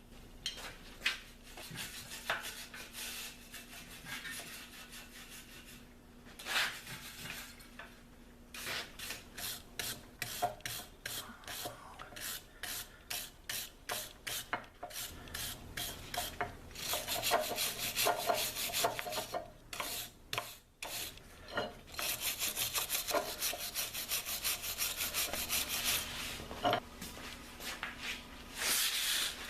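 Hand sanding on the metal parts of an antique post drill: sandpaper scraping in back-and-forth strokes, about two a second, that turn into fast, continuous scrubbing in the second half.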